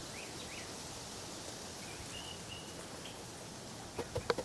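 Outdoor ambience: a steady hiss with a few short bird chirps, then three or four sharp clicks or knocks close together near the end.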